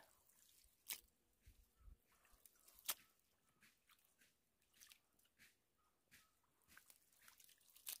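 Faint, scattered splashes, drips and squelches from hands scooping mud and stones out of a shallow spring pool to deepen it. The two sharper splashes, about one and three seconds in, are the loudest.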